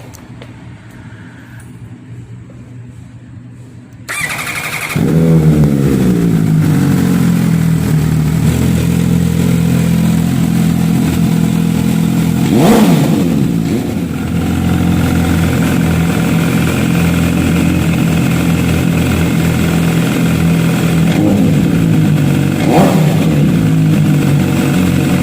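MV Agusta F4 Lewis Hamilton edition's inline-four engine started up about four seconds in: a brief starter whine, then the engine catches at high revs and settles to a steady idle. Two quick throttle blips follow, one near the middle and one near the end.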